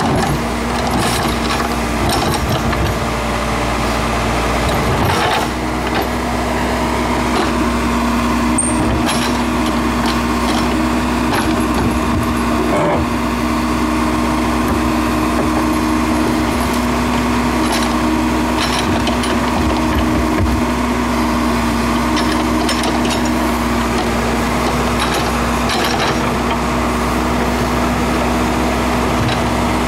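Case 580L Turbo backhoe's turbocharged diesel engine running steadily as it digs, with occasional short knocks and clanks.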